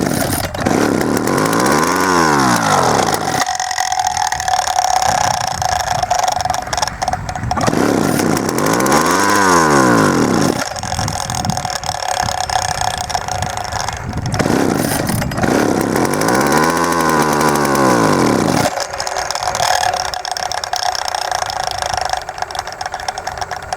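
Old Homelite 350 two-stroke chainsaw engine running, revving up and falling back three times, each sweep lasting about three seconds, and holding a steadier note in between. The owner takes the uneven running as a sign that the carburetor needs tuning.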